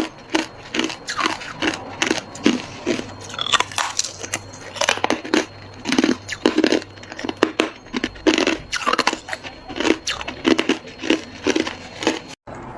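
Hard ice cubes being bitten and chewed: a rapid run of crisp crunches, about two to three a second, that breaks off suddenly near the end.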